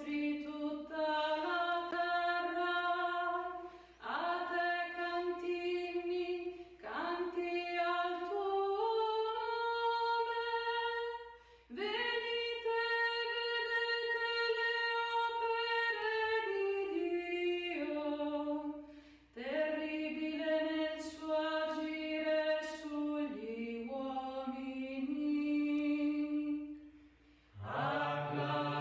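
A woman singing unaccompanied, chanting the verses of the responsorial psalm in phrases of a few seconds with short pauses for breath between them. A lower voice joins near the end.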